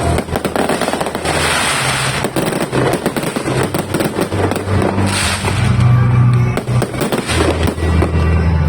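A 5,000-shot fireworks barrage firing a dense, rapid run of bangs and crackles. Music with low bass notes plays underneath and gets stronger in the second half.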